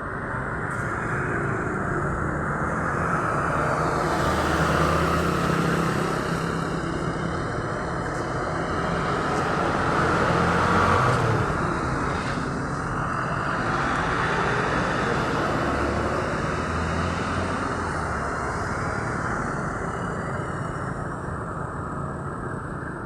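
Road traffic passing, with the engine and tyre noise of buses and other vehicles moving off; it swells loudest about 5 and 11 seconds in.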